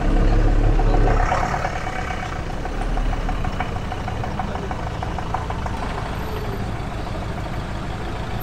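Motorhome engine running at low speed as it pulls up to a closed entrance barrier, with a deep rumble loudest in the first second before settling to a steady hum.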